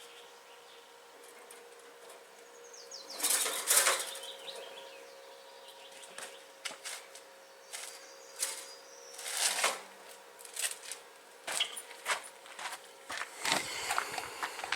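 Workshop handling noises: scattered clicks and clinks, with two louder scraping or rustling bursts, over a faint steady hum.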